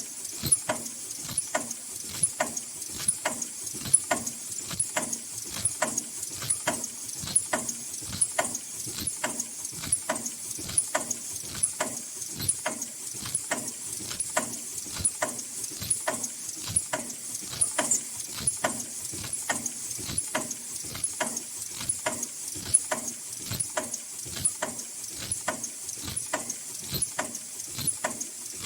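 High-speed N95/FFP2 mask production machine running: rhythmic mechanical clacking about two to three times a second over a steady high whine.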